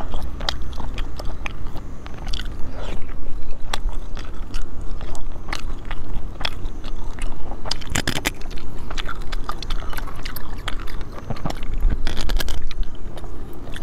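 Close-miked eating of snails in chili sauce: many sharp clicks and scrapes of the shells in the fingers and at the mouth, with biting and chewing, over a low rumble of wind on the microphone.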